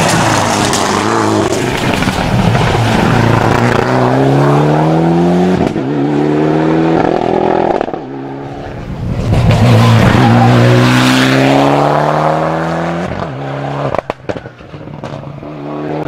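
Mitsubishi Lancer Evolution X rally car's turbocharged four-cylinder engine accelerating hard in two runs, revs climbing and dropping with quick upshifts through the gears. A few sharp cracks come near the end.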